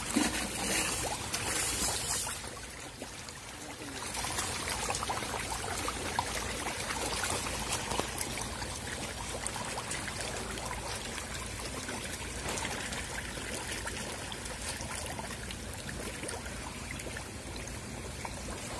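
Water splashing and churning with many small splashes as a crowd of hybrid magur catfish thrashes at the surface of a cement tank while feeding. It is a little louder for the first couple of seconds, then settles to a steady splashing.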